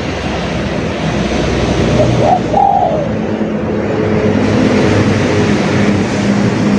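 Spotted dove (derkukur) cooing: one short phrase of a couple of quick notes and a longer falling coo about two seconds in, over a steady hiss of background noise.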